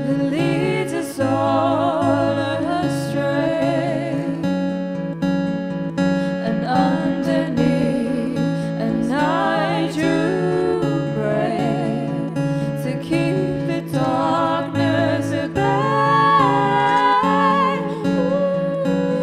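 Acoustic guitar playing steady chords while a woman's voice sings long, wavering notes over it.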